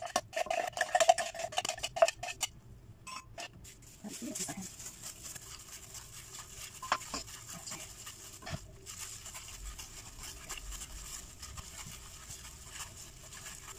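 A plastic food-processor bowl knocks and scrapes against a glass baking dish as a vegetable paste is emptied onto ground beef, a quick run of clatters. Then, a few seconds in, bare hands knead the raw minced meat and vegetables, a quieter steady squelching rustle.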